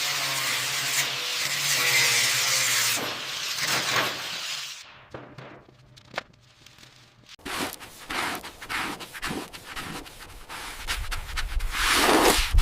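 Hand scraping and wire-brushing: one long steady scrape, then after a quieter pause a run of short, rapid rubbing strokes that grow louder near the end.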